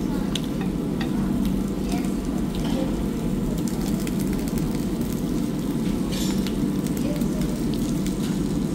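Meat sizzling on a Japanese tabletop barbecue grill, a steady frying hiss with scattered pops and crackles.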